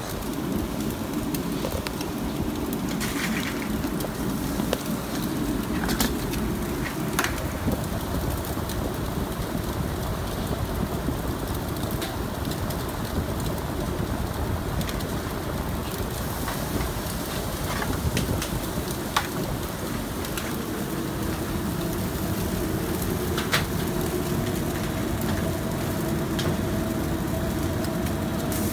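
Steady low rumble of restaurant kitchen equipment, with scattered clicks and taps of utensils as shawarma wraps are assembled and rolled; a faint steady hum joins about two-thirds of the way through.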